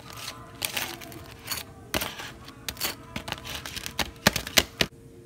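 Table knife scraping butter across dry toast on a paper plate: a run of uneven, scratchy strokes that stops shortly before the end.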